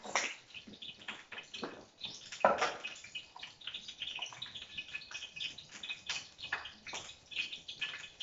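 Food being handled at a kitchen counter: scattered small clicks, taps and rustles from hands and utensils at a bowl, with one louder knock about two and a half seconds in.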